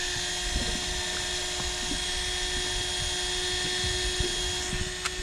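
Electric fishing reel winding in line from the bottom: a steady motor whine that holds one pitch. A single sharp click comes near the end.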